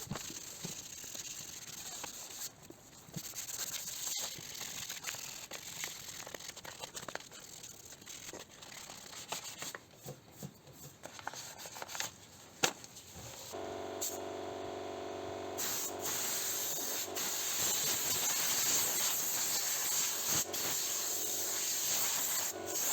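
Hand sanding of painted car body panels with fine 800-grit paper and a scuff pad: an irregular scratchy rubbing. About halfway in this gives way to a steady hiss of spraying, typical of an aerosol can of brake cleaner used as a degreaser before painting.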